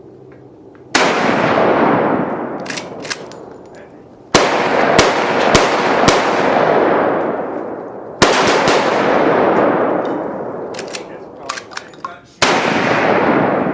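Gunfire on a shooting range: four loud shots about three to four seconds apart, each with a long echoing tail, and shorter, sharper single shots in between.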